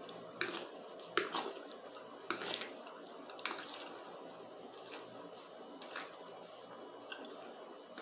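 Eating sounds of a mouthful of spaghetti with mortadella: several short wet slurps and smacks in the first few seconds, then quieter chewing.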